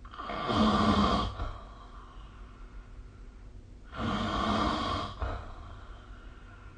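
A person snoring in sleep: two loud snores, each about a second long and about three and a half seconds apart, with quiet breathing between.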